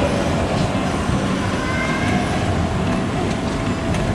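Steady, fairly loud rumbling background noise with no clear source, with a few faint clicks over it.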